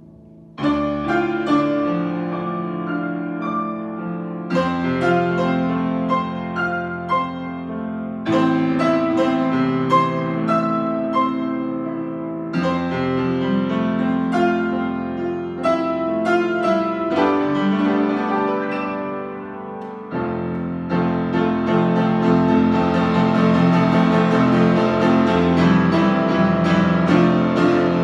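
A 93-year-old grand piano, just tuned, played in chords that ring on, with a new phrase struck about every four seconds. About seven seconds before the end the playing turns fuller and louder, with a busier bass.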